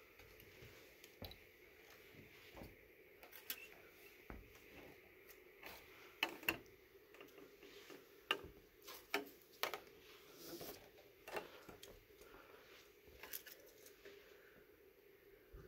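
Footsteps on a weathered wooden plank walkway: scattered, irregular clicks and knocks of boards taking weight, coming thicker around the middle.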